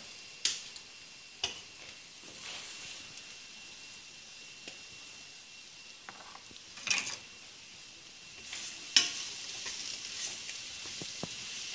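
Bread cubes frying in olive oil in a frying pan, a low steady sizzle. A few sharp clicks come through it, and near the end a wooden spatula stirs the cubes, knocking and scraping against the pan.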